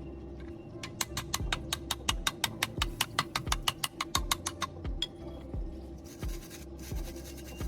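Background music with a steady low beat, overlaid for about four seconds by a quick run of sharp scratchy clicks, several a second.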